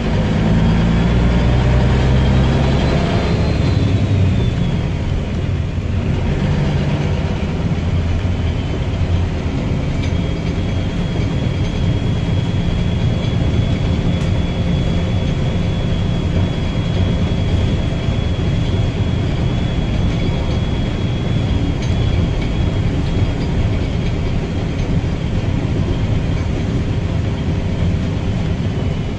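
Guy Arab III bus running under way, its engine note dropping about three seconds in, with a high-pitched whistle. The whistle rises and falls over the first few seconds, then holds steady from about ten seconds in until past twenty seconds.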